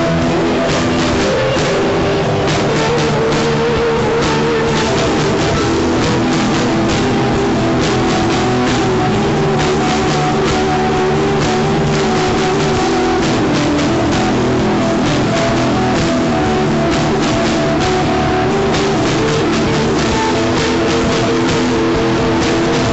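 Rock song played by a band: electric guitar and drum kit, loud and steady throughout.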